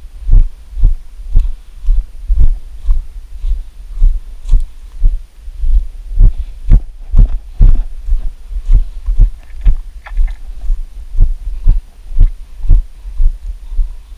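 Footsteps of someone walking with the camera: a steady train of heavy, low, dull thuds about twice a second, with light clicks and scuffs over them.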